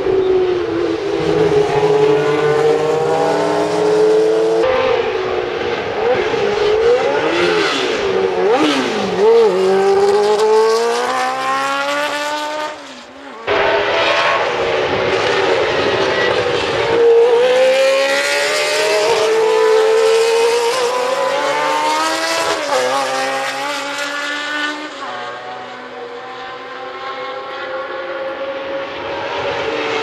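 Historic Formula One cars passing one after another through a corner, engines at high revs. Their pitch drops on the downshifts and then climbs in steps as each car accelerates away through the gears.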